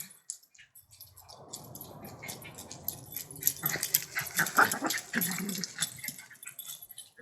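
A dog vocalizing, with rustling and sharp clicks around it, loudest in the middle.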